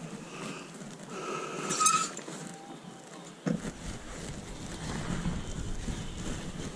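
Clothes hangers sliding and scraping along a metal clothes rail as coats are pushed aside, with one sharp squealing scrape about two seconds in and a knock a little later, over low outdoor background.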